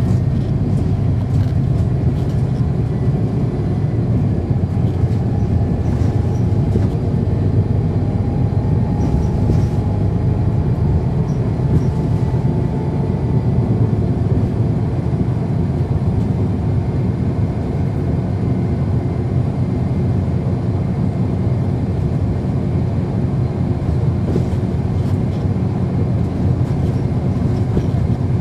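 Inside the cabin of a 2010 NABI 416.15 transit bus under way: its Cummins ISL9 diesel engine and ZF Ecomat six-speed automatic transmission running steadily over road rumble. A faint whine rises slowly in pitch from about five to thirteen seconds in.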